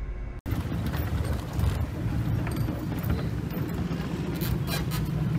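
After a sudden cut about half a second in, the low, steady rumble of a large motor yacht's engines and churning water, with scattered knocks and clicks.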